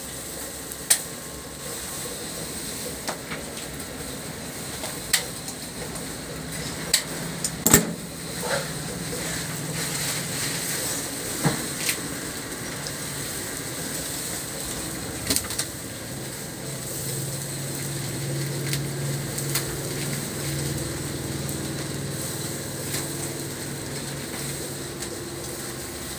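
Scissors snipping the twine and a steel tube skewer clinking against a wooden chopping board as a roast pork belly roll is unskewered: a string of short, sharp clicks and knocks over steady background noise. A low engine hum comes in about two thirds of the way through.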